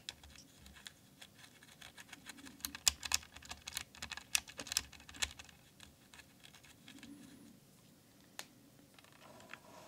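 Blue mechanical keyboard switches, lubricated with hand cream, clicking as keys are pressed rapidly for about five seconds, then only a few scattered clicks.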